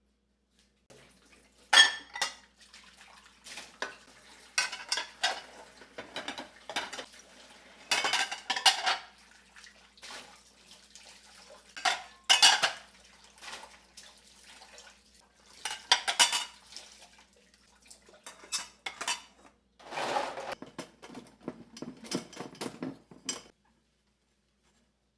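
Dishes and cutlery clattering as they are handled and set down: a long run of separate clinks and knocks, the sharpest one near the start.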